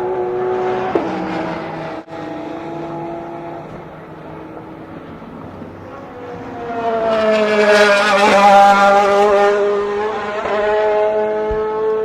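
Sports-prototype and GT race car engines going past a corner. One car's engine fades early on. A louder one builds from about six seconds in and is loudest around eight to nine seconds, its pitch shifting in steps as it changes gear.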